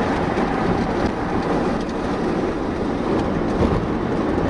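Steady road and wind noise inside a vehicle's cabin while it drives at highway speed: an even rumble of tyres on pavement.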